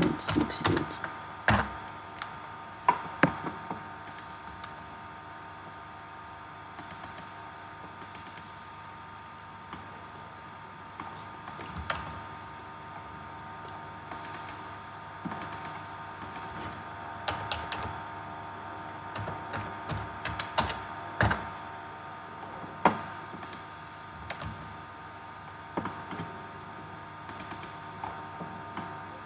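Computer keyboard keystrokes and mouse clicks, coming sporadically as single clicks and short quick runs, over a faint steady hum.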